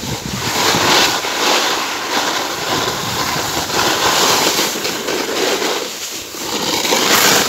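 Snowboard sliding and scraping down a snowy slope: a continuous rushing noise that swells and eases. It cuts off abruptly at the very end.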